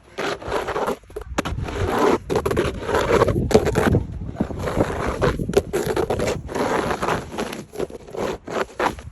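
Snow shovel scraping through snow over pavement in repeated strokes of about a second each.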